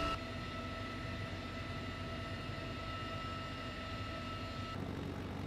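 Steady drone of a CH-53E Super Stallion helicopter heard from inside its cabin, a low rumble with a steady high whine over it. The sound shifts abruptly just after the start and again near the end.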